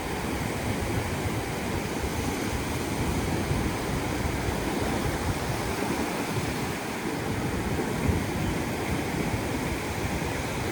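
Atlantic surf washing onto the beach in a steady wash, with some wind rumble on the microphone.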